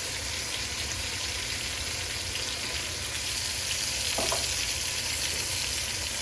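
Food frying in a hot pan: a steady sizzle.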